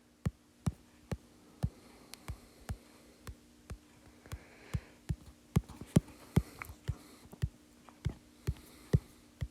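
Computer mouse clicking repeatedly at an uneven pace, about three clicks a second, some sharper than others, over a faint steady hum.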